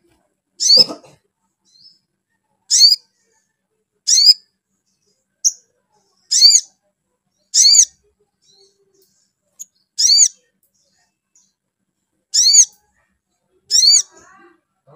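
Olive-backed sunbird (sogok ontong) giving a short, sharp high call over and over, about ten times, one every one to two seconds; each call is a quick cluster of arching notes. A low knock comes with the first call, about a second in.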